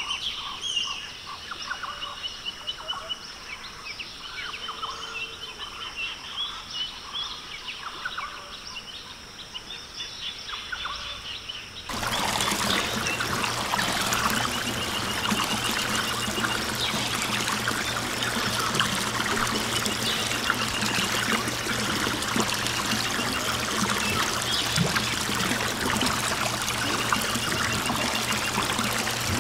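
Birds chirping faintly. About twelve seconds in, the toy water tanker's mini water pump switches on suddenly with a steady low hum, and water trickles and pours from its outlet pipe.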